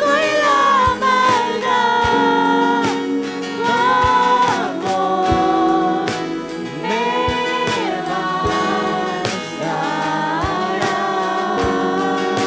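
Worship song: a singer holds long, wavering notes in phrases of a second or two over a band's steady chords.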